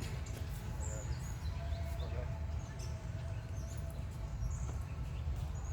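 Short, high animal chirps scattered through, over a steady low rumble.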